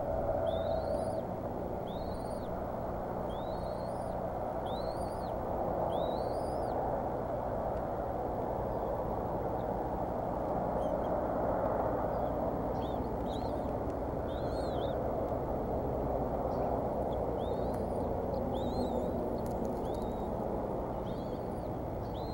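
Bald eaglet chicks peeping: thin, high calls that rise and fall, repeated about once a second in two runs with a pause of a few seconds between them, over a steady rushing background noise.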